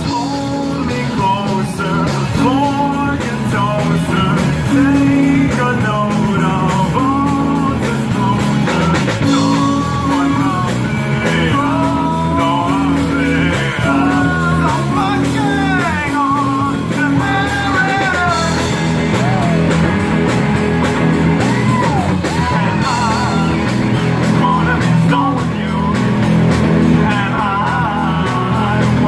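Rock band playing a song live: a lead singer over electric guitar and a steady drum beat.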